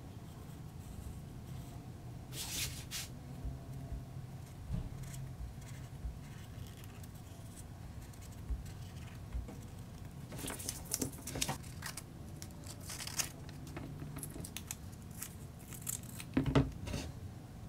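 Sharpie marker drawn across a sheet of paper in short strokes, with the paper shifting on the bench. Near the end, scissors cut into the paper.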